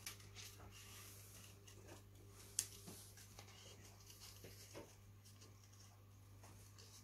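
Faint snips and rustles of small scissors cutting paper, with one sharper click about two and a half seconds in, over a low steady hum.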